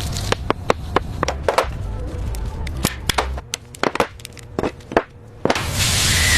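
A rapid, irregular series of sharp clicks and knocks over a low rumble, then a loud steady hiss that starts about five and a half seconds in.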